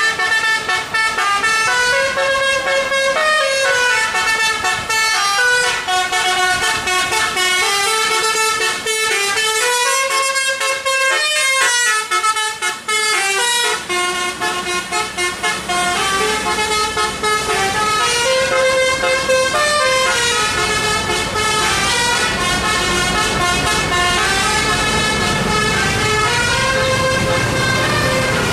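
Bus 'telolet' musical horn, several pitched tones stepping up and down in a tune. From about halfway through, a heavy bus engine's low rumble comes in under it.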